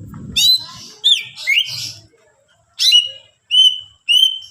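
Greater green leafbird (cucak ijo) singing loudly. In the first two seconds it gives a few sharp notes that swoop down from very high. After a short pause comes a run of short repeated chips, about two a second.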